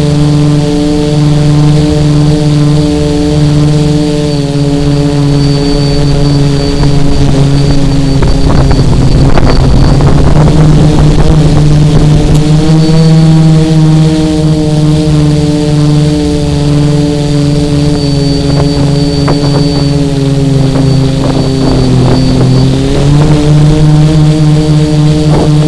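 The tricopter's three Emax XA2212 980 kV brushless motors and propellers drone steadily, recorded by the onboard camera's microphone. The pitch drops slightly about four seconds in, rises again near the middle and dips and climbs back near the end as the throttle changes. Rough wind buffeting comes through around the middle and again toward the end.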